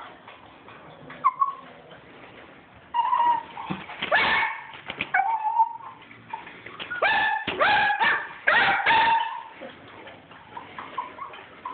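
Small dogs yipping and barking in play. There are a few short yips around four to five seconds in, and a quicker run of barks from about seven to nine seconds in.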